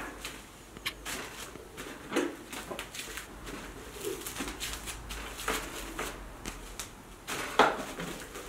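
Clear plastic film crinkling and rustling as it is spread and smoothed by hand over slices of meat on a wooden board. There are scattered sharper crackles, the loudest near the end.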